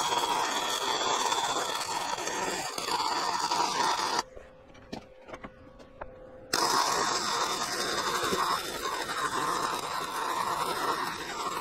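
MIG welder running on steel with .030 wire and C25 argon-CO2 shielding gas: two welding runs, the arc crackling steadily, with a pause of about two seconds between them and a few small clicks in the pause.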